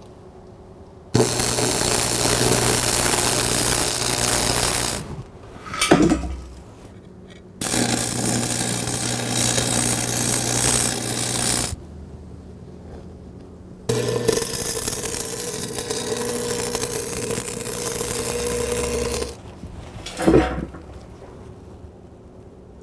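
Stick (arc) welder laying beads on a steel beam: three runs of steady arc crackle and hiss, each about four to five seconds, with a low electrical hum beneath and short pauses between them. A brief sharp sound falls in each pause.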